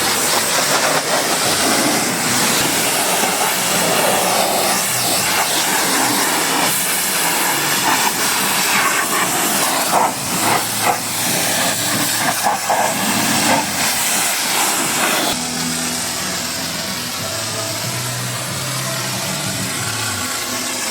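High-pressure water spray hissing against a car. About two-thirds of the way through it stops, leaving a steadier, lower hum of an idling motor.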